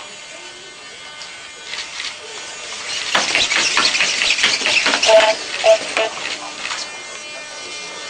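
ROPID small humanoid robot's servo motors whirring as it moves on a tabletop, with a rapid clatter of its feet and joints from about three seconds in that is the loudest part.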